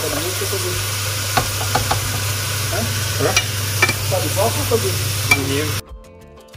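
Vegetables sizzling in a frying pan on an induction hob, with scattered utensil clicks as they are stirred, over a steady low hum. Near the end the sizzle cuts off abruptly and quiet background music takes over.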